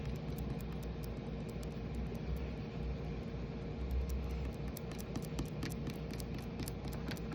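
Small electric fan running with a steady whir, a faint constant tone under a low hum.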